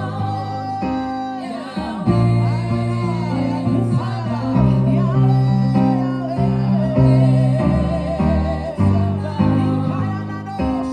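Live gospel worship song: singing with vibrato over a band, with a prominent bass guitar playing sustained low notes that change about once a second.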